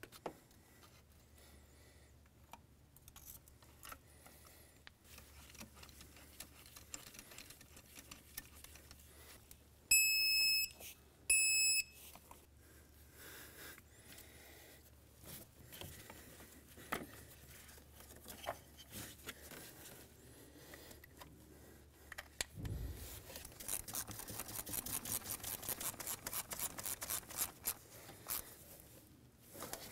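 Hand-tool work in a truck's engine bay: scattered small clicks and knocks of metal tools. About ten seconds in come two short, high electronic beeps, the loudest sounds here. Near the end a ratchet clicks rapidly for several seconds, starting with a low thump, as the ignition coil's bolt is run in.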